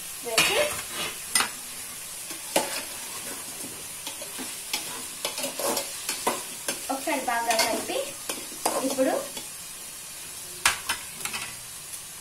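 Bottle gourd pieces frying with onion, tomato and spices in an aluminium pot with a steady sizzle. A ladle stirs them, scraping and knocking against the pot about a dozen times.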